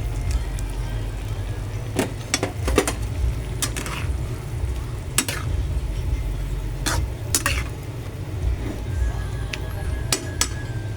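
Cooking utensil clinking against a pot or pan about eight times at uneven intervals, over a steady low rumble.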